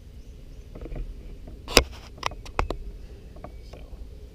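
A handful of sharp clicks and knocks from gear being handled aboard a pedal kayak, the loudest about two seconds in.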